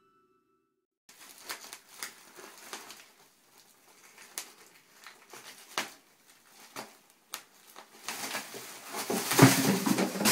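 Plastic wrapping of a toilet-paper multipack crinkling and crackling in short bursts as a cat claws and bites at it. Near the end the crinkling grows denser and louder as the pack is knocked off.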